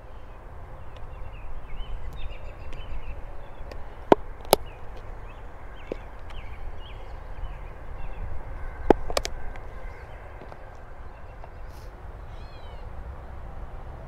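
Wind on the microphone with small birds chirping and calling throughout. Four sharp clicks, two about four seconds in and two about nine seconds in, from a plastic fly box being handled.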